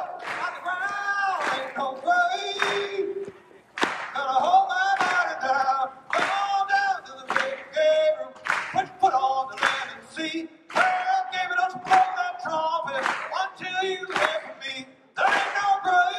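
A group of male voices singing together, unaccompanied, in short held phrases that each start sharply.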